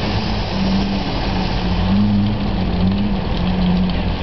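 Simca Marmon SUMB military truck's 4.2-litre V8 engine running steadily as the truck crawls through mud, its note wavering slightly up and down.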